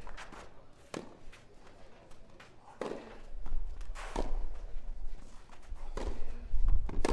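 Tennis ball struck by rackets during a rally: five sharp hits, roughly one to two seconds apart. A low rumble builds underneath from about three seconds in.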